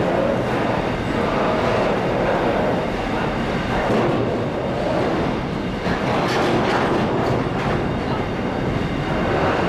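Freight train's container wagons rolling past at steady speed: a continuous rumble of steel wheels on the rails, with occasional clicks from the wheels.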